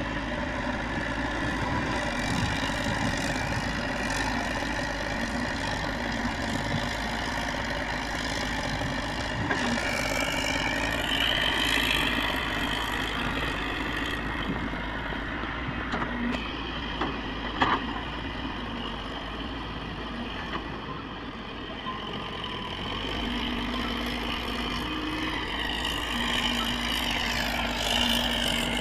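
JCB tracked excavator's diesel engine running steadily, with a whine that rises in pitch about ten seconds in and again near the end, and a few sharp knocks around the middle.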